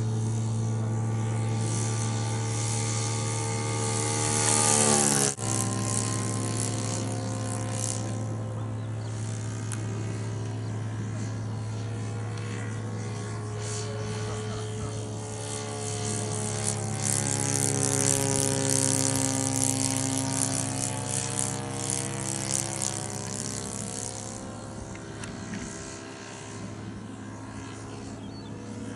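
Radio-controlled model aircraft engine and propeller droning. The pitch slides down and the sound cuts off abruptly about five seconds in. The drone then rises and falls in pitch again, loudest in the middle of the stretch, as the model is flown past.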